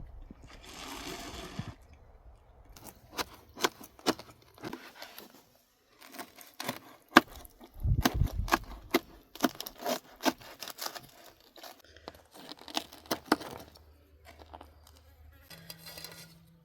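Handling sounds: a brief rustling tear near the start, then a scattered string of sharp clicks and knocks, with a dull thump about eight seconds in.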